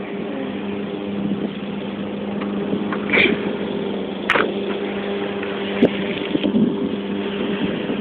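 Indoor swimming pool hall ambience: a steady mechanical hum over an even wash of noise, with a couple of short sharp sounds, splashes or shouts, about three and four seconds in.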